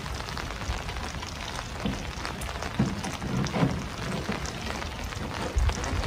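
Rain pattering on wet tent fabric, a dense scatter of small ticks. A few dull knocks and rubs come through about three seconds in, as a stainless steel stove chimney pipe is worked down through a silicone tent hole jack.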